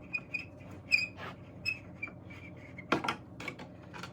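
Screwdriver turning small flathead screws in an old radio speaker's mount, the screws giving a run of short, high squeaks, with a sharper clack about three seconds in.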